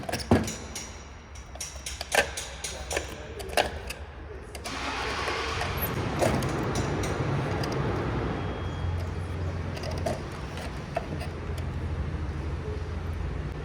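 Several sharp clicks and knocks, then about five seconds in a steady low machine hum with a hiss sets in and keeps going.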